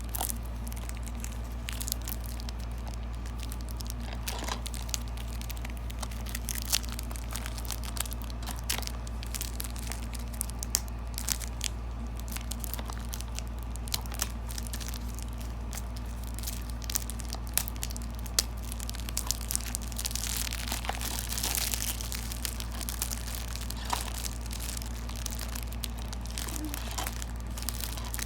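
Plastic shrink wrap crinkling and tearing as it is peeled off a DVD case, in irregular crackles and snaps, with a denser stretch of rustling about twenty seconds in.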